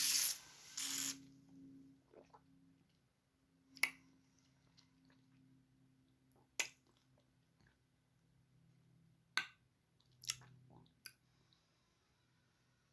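Mouth sounds of a person tasting whiskey: two short breathy draws of air near the start, then about five scattered lip smacks and tongue clicks as the spirit is worked over the palate.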